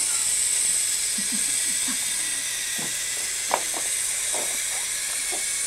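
Steady high-pitched hiss of the recording. Over it come a few faint plastic clicks and one sharper knock about three and a half seconds in, as the Geotrax toy train knocks plastic figures over on the track.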